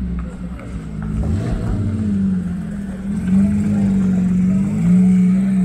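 Porsche 911 GT3's naturally aspirated flat-six engine pulling away slowly on light throttle as the car passes close by. The engine note rises and falls a little and gets louder toward the end.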